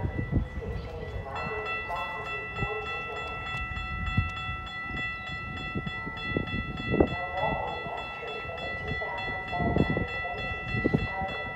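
A distant approaching train's Nathan P3 air horn sounding, heard loudest around the middle, over a steady high-pitched ringing that starts about a second in and keeps on.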